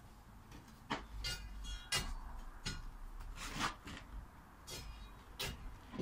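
Steel digging bar jabbed down into a post hole, giving several irregular knocks on soil and stones, some with a short metallic ring.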